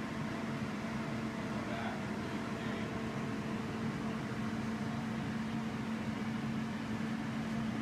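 Steady hum of a running electric motor: an unchanging low drone with one strong low tone.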